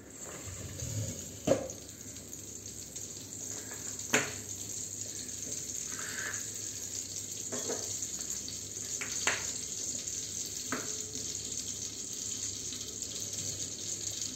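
Ghee melting and sizzling in a hot metal kadhai over a gas burner: a steady sizzle that builds up over the first second or two and then holds. A few sharp clicks sound over it, the loudest about one and a half and four seconds in.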